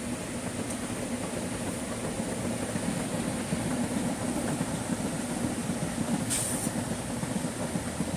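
Heavy rain falling as a steady hiss, with a low rumble from a passing vehicle swelling in the middle. A short, sharper hiss comes about six seconds in.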